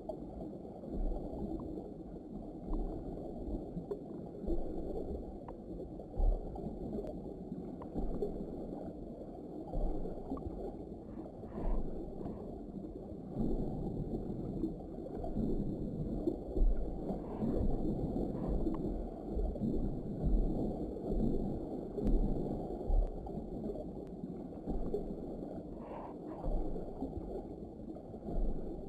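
Muffled underwater rumble and gurgling of water heard through a submerged camera, with irregular low thumps and swells every second or two.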